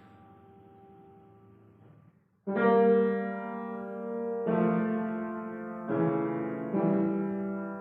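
Piano playing a slow classical romance: a held chord fades away, a brief pause, then four chords struck a second or two apart, each ringing on.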